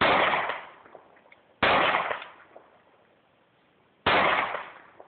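Three pistol shots fired slowly, about two seconds apart, each a sharp bang that trails off in a short echo.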